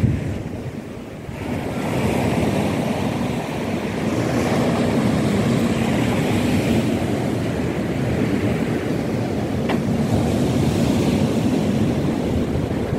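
Wind buffeting the microphone over the wash of surf breaking on the beach; the wind eases briefly about a second in, then picks up again.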